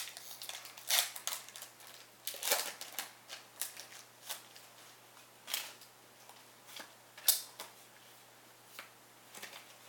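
Foil wrapper of a Pokémon booster pack crinkling and tearing as it is opened by hand, in a string of sharp, uneven crackles, then the cards being handled.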